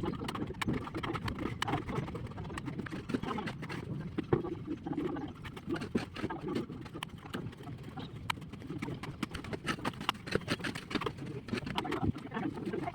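Irregular clicks, knocks and scrapes of hand plastering work: a steel trowel striking and spreading cement-sand mortar on a brick wall.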